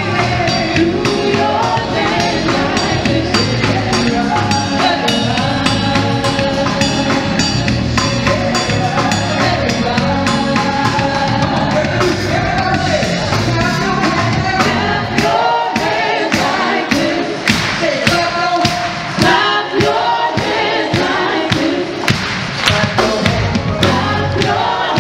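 Live gospel choir singing with a full band, the audience clapping along. About fifteen seconds in the bass and drums drop away, leaving the voices over steady rhythmic hand claps.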